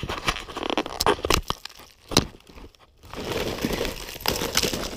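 Ice-crusted snow crunching and cracking as an aluminium ladder frozen into the ice is pulled loose. There is a run of sharp cracks, the loudest about two seconds in, then denser crunching over the last two seconds.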